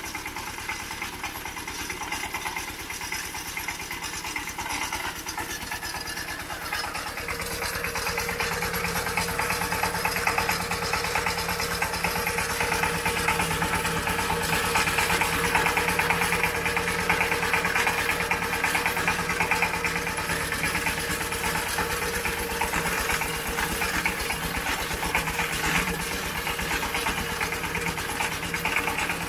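A small engine running steadily with an even pulse, getting louder and a little higher from about seven seconds in.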